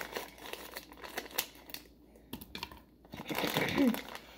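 A chocolate bar's wrapper crinkling as it is snipped with scissors and then pulled open, a run of small crackles followed by a louder burst of crinkling about three seconds in.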